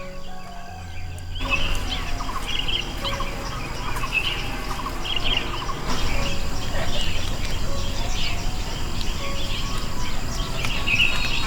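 Birds chirping repeatedly over a steady background hiss and low rumble. The chirping starts about a second and a half in and cuts off abruptly near the end.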